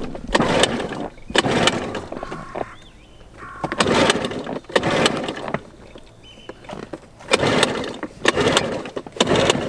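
Tohatsu 3.5 hp outboard motor being pull-started again and again: several sharp yanks of the recoil starter cord, each turning the engine over briefly without it catching and running. A hard-starting engine, which the owner puts down to a carburettor that needed a clean.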